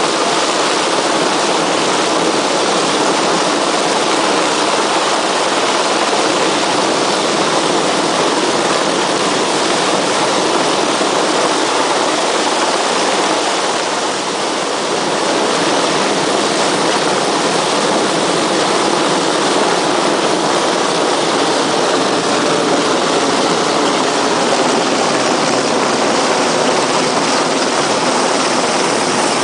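A helicopter hovering close by makes loud, steady rotor and engine noise, dipping slightly about halfway through.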